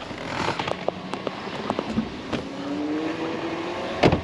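A motor vehicle's engine running and pulling away, its pitch rising over the last second or so, with scattered clicks and a single loud thump about four seconds in.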